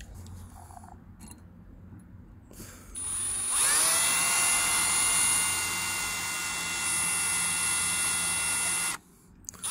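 Electric drill spinning up about three seconds in, its motor whine rising and then holding steady as a cobalt bit bores into a steel pin that holds a Shimano 10-speed cassette's cogs together. It stops about nine seconds in.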